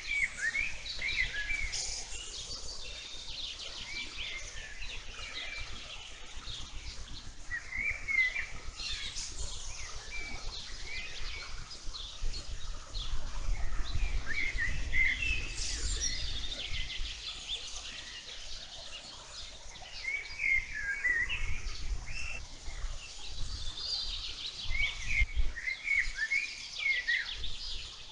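Several birds singing and chirping at once in a meadow: overlapping short trills and twittering phrases that keep coming with few gaps. A low rumble sits beneath them, strongest around the middle.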